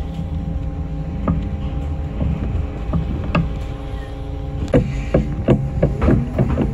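City bus under way from a stop: steady low engine-and-drivetrain rumble with a faint whine. A couple of single knocks, then several quick rattles and knocks in the last two seconds.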